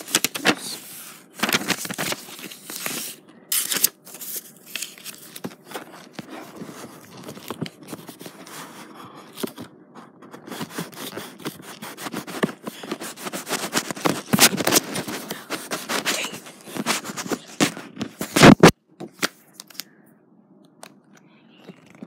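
Old paper rustling and scraping right against a phone's microphone, with irregular handling clicks and knocks. A loud knock near the end, after which it goes much quieter.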